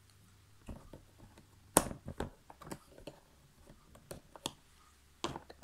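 Scattered light clicks and taps of cardboard jigsaw puzzle pieces being handled and pressed down on a table, the loudest a sharp tap about two seconds in.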